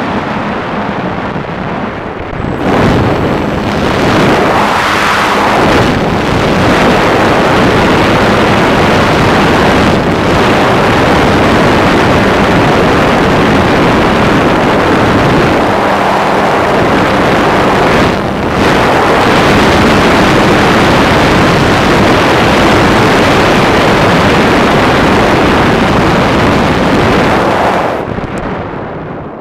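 Steady rush of wind and electric motor-driven propeller on the onboard camera of a Multiplex Solius electric RC glider flying under power. The noise falls away near the end as the motor is cut and the folding propeller stops.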